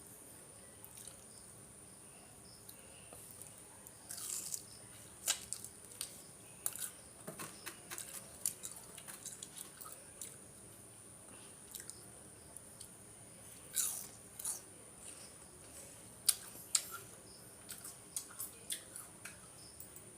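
Close-up eating sounds of a person chewing a meal of rice with dal and fried vegetables: irregular wet mouth smacks and sharp clicks of chewing and biting, coming in clusters.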